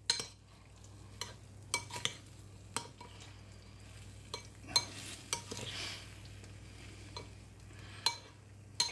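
A metal spoon stirring chicken bites through sticky barbecue sauce in a bowl: soft wet stirring with scattered light clinks of the spoon against the bowl.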